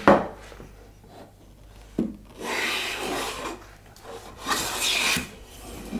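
A long metal hand plane run on its side along the bench, shooting the edge of a board: a knock, another knock about two seconds in, then two planing strokes, each a hissing rasp of about a second as the blade takes a shaving.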